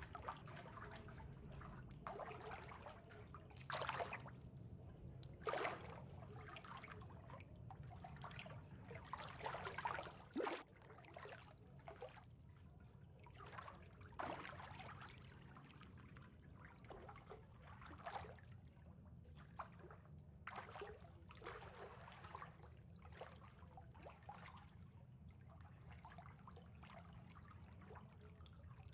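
Faint water ambience: gentle trickling and lapping water, rising in irregular swells every second or two over a low steady hum.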